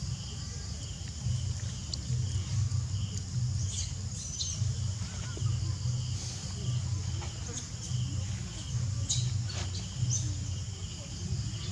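Outdoor ambience: insects droning steadily, one of them pulsing at an even pace, with a few short bird chirps and clicks over a continuous low rumble.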